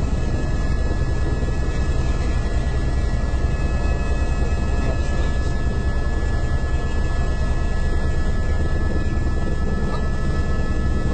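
Helicopter engine and rotor noise heard inside the cabin in flight: a steady, dense drone with a few constant high-pitched whine tones over it.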